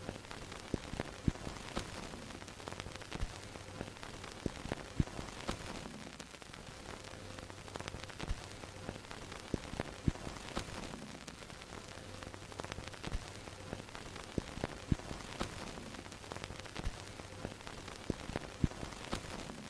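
Vintage film projector sound effect: a steady hiss scattered with irregular crackles and pops like dust and scratches on an old film soundtrack, over a low hum that fades in and out.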